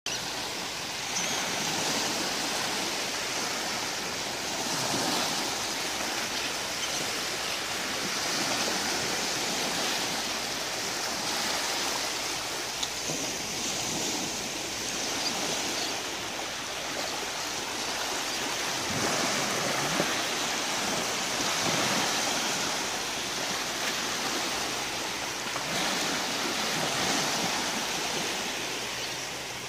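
Small waves lapping and washing onto a sandy beach in shallow water: a steady wash that swells and eases every few seconds.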